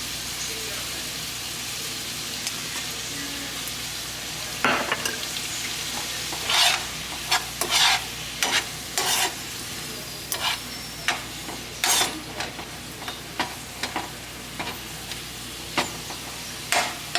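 Spinach cooking down in a pan of butter, sizzling steadily. From about five seconds in, a utensil stirs it, with short irregular scrapes and knocks against the pan.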